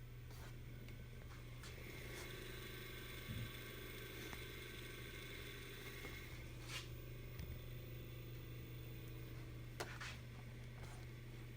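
Electric motor run by a Yaskawa GPD 515 AC drive on test: a steady low hum, joined about two seconds in by a faint higher whine that fades out after a few seconds, with a few light clicks.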